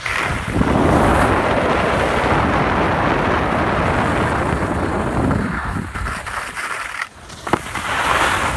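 Wind rushing over the microphone and the scrape of sliding over packed snow, heard from a camera carried down the run. The noise drops away briefly about seven seconds in, followed by one sharp knock.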